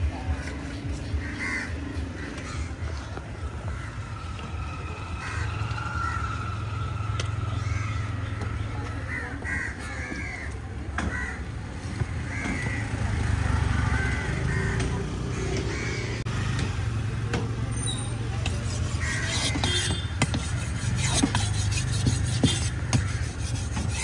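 Crows cawing now and then, one short call every second or two, over a steady low rumble, with a few knocks near the end.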